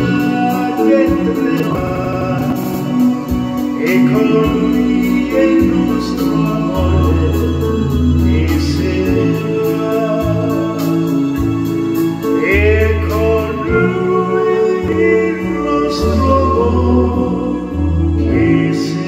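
A man singing into a handheld microphone over backing music with held chords and a low bass line.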